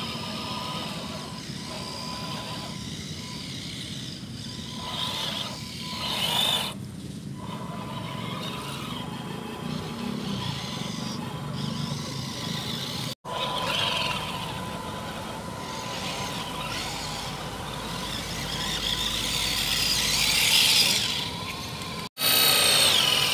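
A 1/10-scale RC crawler truck's electric drivetrain whining steadily as it crawls through mud, swelling louder twice. The sound cuts out abruptly for a moment twice.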